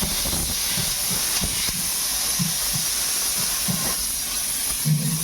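Compressed-air blow gun hissing steadily, blowing sand out of a truck tyre, with a brief low sound near the end.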